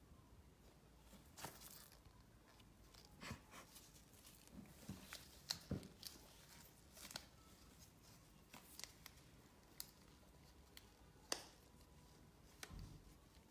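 Near silence broken by about a dozen faint, scattered clicks and rustles of hands handling things, from a latex-gloved hand moving at the desk. The clearest come about five and a half and eleven seconds in.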